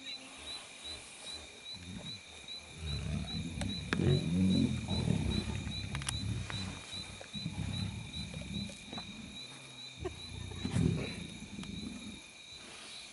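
Lions growling low and rough while feeding at a carcass, loudest about four to six seconds in and again briefly near eleven seconds.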